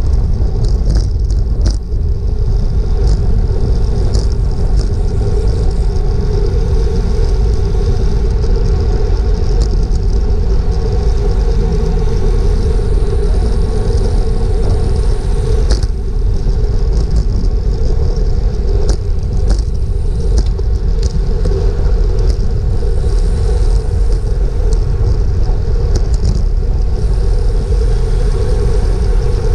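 Steady rumble of wind rushing over a bike-mounted action camera's microphone, with road and tyre noise, as a road bike rides in a racing pack at about 25 mph. Scattered short ticks sound over it.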